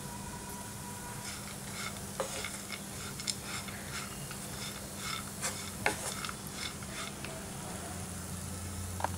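Wooden spatula stirring and scraping chopped dates and nuts around a nonstick pan as they sauté in ghee, with irregular clicks and scrapes from about a second in over a light sizzle.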